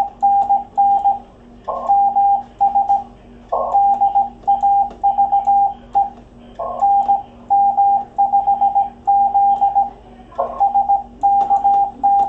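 Morse code on an amateur radio station: a single tone of about 750 Hz keyed in dits and dahs, in groups of characters with short pauses between them, over a faint steady hum.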